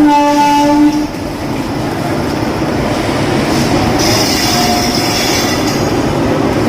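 Train horn sounding a steady chord that cuts off about a second in, followed by the rumble of a departing passenger train's wheels on the rails, with a high wheel squeal joining about four seconds in.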